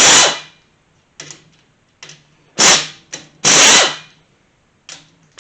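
Chicago Pneumatic air impact wrench hammering in short bursts, breaking loose the 13 mm bolts on a Kawasaki KZ400 engine's top end: one burst at the start, two more about two and a half and three and a half seconds in, and another starting at the very end. Short clicks come between the bursts.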